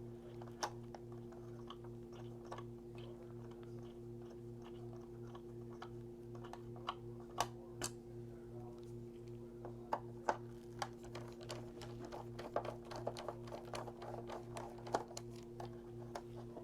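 Small clicks and scratches of a screwdriver backing out the chassis screws of a Lionel O-scale passenger car, with the car being handled, more frequent in the second half. A steady low electrical hum runs underneath.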